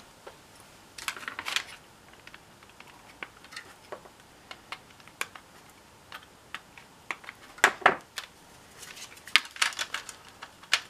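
Light plastic clicks and taps as an NCE ProCab handset's circuit board and front case are handled and fitted back together. Scattered small clicks, with a louder cluster a little past halfway and another shortly after.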